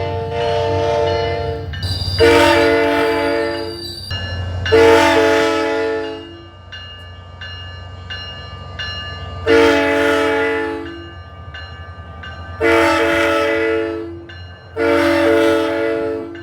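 Locomotive air horn with a fouled chime blowing a series of long blasts with short gaps, several tones sounding together in each blast, over a low rumble from the locomotive during the first few seconds.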